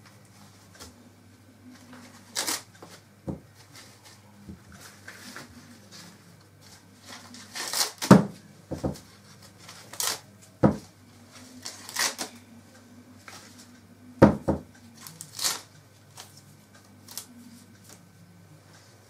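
Fresh sweet corn ears being husked by hand: green husks and silk torn and stripped off in irregular crackling rustles and rips, some sharp and loud, over a faint low steady hum.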